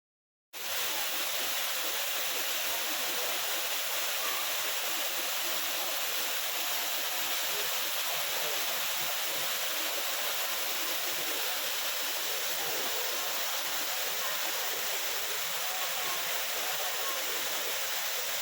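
Waterfall and stream water rushing, a steady, even roar that cuts in abruptly about half a second in.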